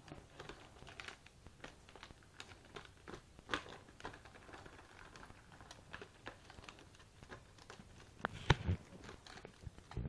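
Clear plastic shrink-wrap around a pack of plastic soda bottles crinkling and crackling in short scattered bursts as kittens play on it, with a louder thump near the end.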